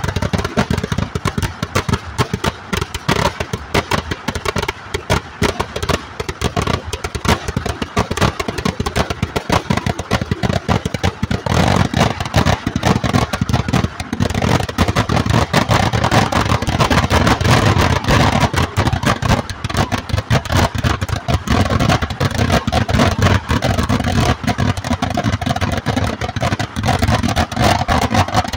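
Eedu vedi fireworks barrage: a long, unbroken run of firecrackers going off in very rapid succession, a dense, loud crackle of bangs that grows heavier about halfway through.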